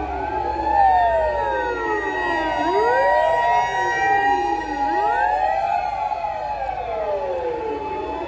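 Sirens of several fire engines wailing together, overlapping tones rising and falling at different times, one of them held at a steady pitch for about four seconds before falling away. Under them runs the low rumble of the trucks' engines.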